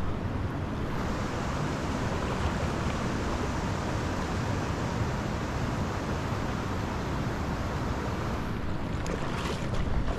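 Steady rush of swift river water from the South Platte, running a little high, with wind buffeting the microphone. A few faint clicks near the end.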